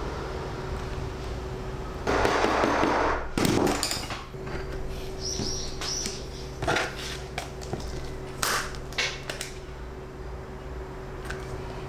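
Clear PVC vinyl sheet rustling and crinkling as it is handled on a wooden workbench, loudest for about a second and a half near the start, followed by scattered knocks and taps of hands and tools on the bench and a few short squeaks.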